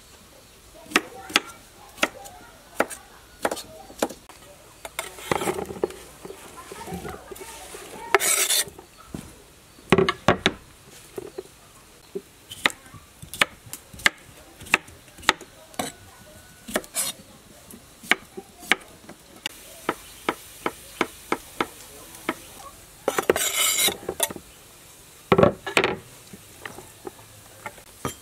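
Cleaver cutting cucumbers on a wooden cutting board: a string of sharp taps and knocks of the blade on the board, broken by a few longer rasping slicing strokes.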